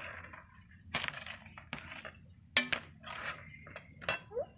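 A steel spoon clinking and scraping against a metal tray and pans: several separate clinks, one about halfway through ringing briefly. A short rising squeak near the end.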